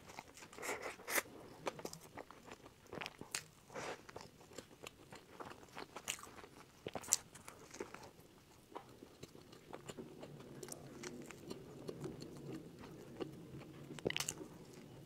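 Close-miked biting and chewing of a mammoth bun (猛犸包), a large filled bread roll, with crisp crunches on each bite over steady chewing. A sharp bite stands out near the end.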